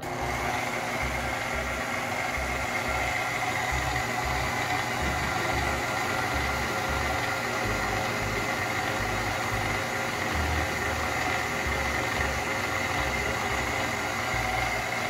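KitchenAid Artisan stand mixer's motor switched on and running steadily, with a pasta roller fitted to the front attachment hub that no longer drives it: the hub gears are broken.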